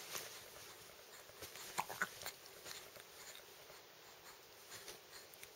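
Faint baby sounds: soft mouth clicks with two brief squeaks about two seconds in.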